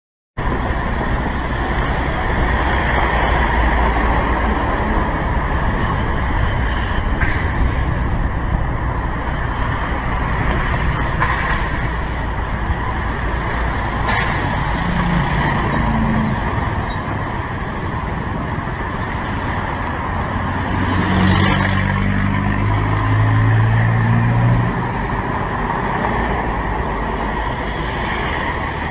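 Motor scooter riding in town traffic, picked up by a helmet-mounted camera: steady wind and road noise with the low rumble of engines. About two-thirds of the way in, an engine rises in pitch in steps and the sound grows louder, then eases off.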